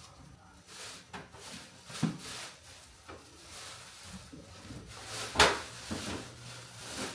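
A tall box and its packing being handled and tipped: rustling with scattered knocks, the loudest a sharp knock about five seconds in.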